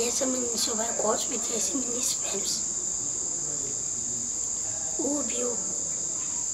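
Crickets chirring in a steady, high-pitched trill, with a child's voice over it for the first two seconds or so and again briefly about five seconds in.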